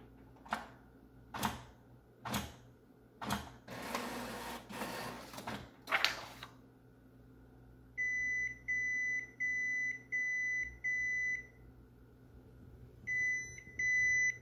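Epson WorkForce WF-3620 inkjet printer malfunctioning: its mechanism knocks about five times, whirs for a couple of seconds and knocks once more. Then the printer beeps repeatedly at an even pace, pauses and beeps again: the alarm for error code 0x97, a fault typically caused by a clogged print head.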